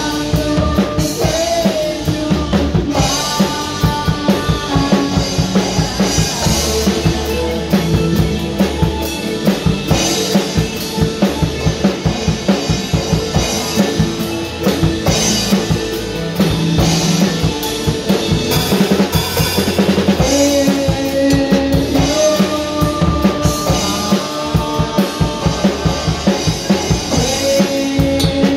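Rock band playing a song: drum kit with cymbals prominent, electric and acoustic guitars, and a sung vocal line.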